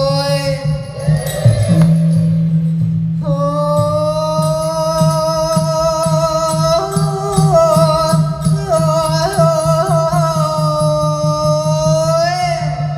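Music with a long held, wavering melody over a steady low drone and an even beat, the melody breaking off briefly a second or two in.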